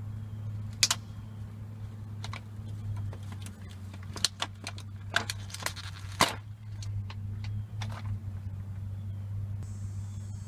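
Sharp clicks, knocks and rattles of plastic parts being handled: a hand oil pump and a bottle of oil being picked up and fitted together. There is one click about a second in and a quick cluster in the middle, over a steady low hum.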